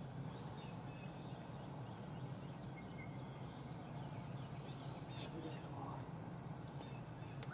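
Quiet outdoor background: a steady low hum with scattered faint, short high bird chirps.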